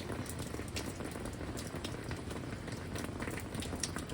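Steady heavy rain with gusty wind, many drops ticking sharply on a hard surface close to the microphone.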